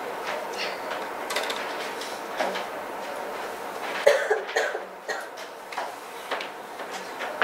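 Sheets of paper rustling and shuffling as they are handled, over steady room noise, with a short, louder burst about four seconds in.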